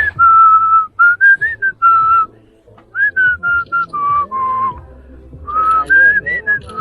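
A person whistling a tune: a string of clear held notes that step up and down, with a short pause a little past two seconds in.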